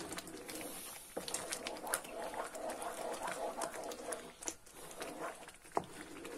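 Thick semolina halva mixture bubbling and popping in a frying pan as a wooden spoon stirs it, with many sharp little pops and clicks throughout.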